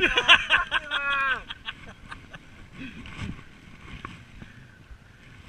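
A loud, high-pitched shout or call from a person's voice lasting about a second and a half, followed by quieter outdoor rustling with a few low knocks.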